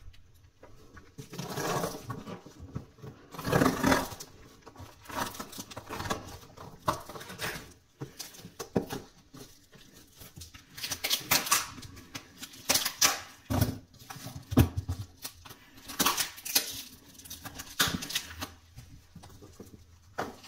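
Clear plastic stretch wrap crinkling and rustling as hands pull and peel it off a cardboard shipping box, in irregular bursts of a second or two.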